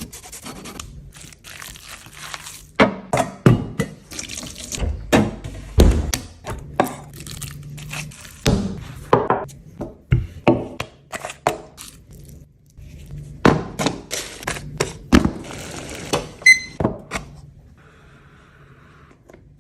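Kitchen cooking sounds: a long run of sharp knocks, thuds and clatters, like utensils and cookware being handled, over a faint steady low hum. The clatter stops a couple of seconds before the end.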